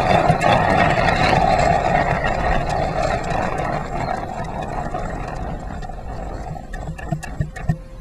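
Garden-railway model train running along the track with a steady engine-like drone that fades as the train slows to a stop, with a few sharp clicks near the end.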